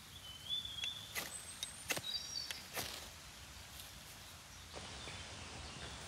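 Several short, sharp scrapes and clicks, about four in the first three seconds, as a knife is struck over a dry-grass tinder bundle to light a fire, with birds chirping in the background.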